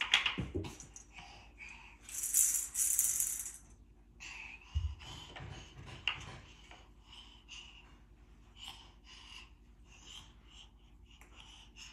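Toddler's wooden and plastic toys rattling and clattering: a few sharp clicks, a loud rattling burst about two seconds in, then scattered lighter knocks and taps.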